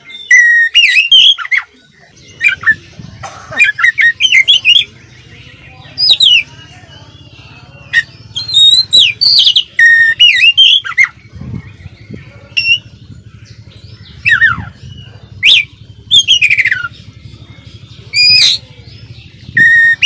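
Male oriental magpie-robin (kacer) in full song: a run of loud, varied whistled phrases with sharp rising and falling notes and chatter, coming in bursts every second or so. A faint steady low hum sits underneath.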